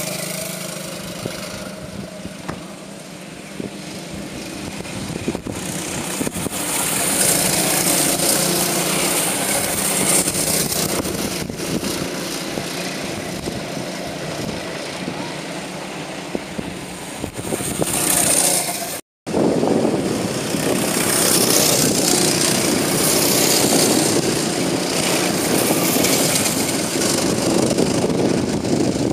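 Go-kart engines buzzing as karts lap the circuit, swelling louder twice as they pass and easing off between, with a brief cut-out of all sound about two-thirds of the way through.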